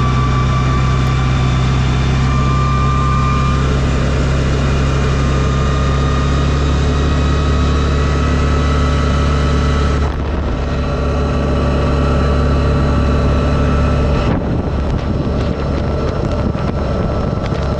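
Side-by-side UTV engine running steadily while driving, with wind noise on the microphone; the drone changes about ten seconds in and again about fourteen seconds in.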